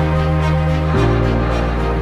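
Background music: sustained chords over a deep bass, the chord changing about a second in.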